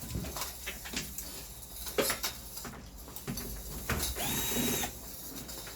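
A power drill-driver whirs briefly, for about a second starting about four seconds in. It is surrounded by scattered clicks and knocks of handling and tool work, typical of taking an air conditioner unit apart.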